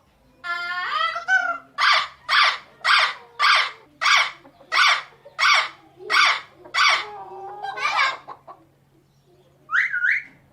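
Parrot calling: a drawn-out call wavering in pitch, then a run of about a dozen short, harsh calls at about two a second, and near the end a quick whistled call that rises and falls.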